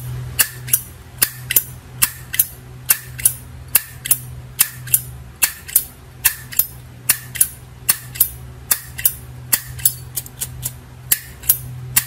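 Zippo 3D Abstract windproof lighter's hinged metal lid being flipped open and snapped shut over and over: sharp metallic clicks, about two to three a second.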